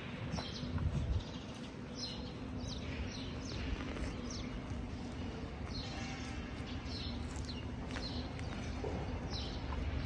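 Small birds chirping again and again in short, falling notes over a steady low hum.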